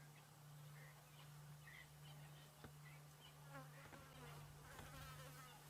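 Near silence: a faint steady low hum with a few faint, scattered high chirps.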